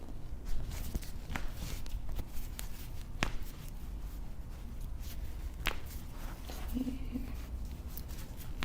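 Chiropractic foot adjustment: soft handling and shuffling of a foot on the table, broken by several sharp cracks of foot and toe joints popping, over a steady low hum.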